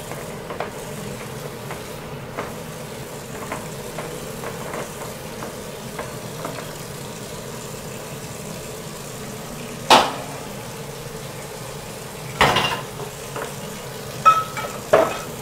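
Steady hiss of a wok cooking on a gas stove, broken by a few sharp clinks of a spoon against bowls and dishes. The loudest clink comes about ten seconds in, and a cluster follows near the end.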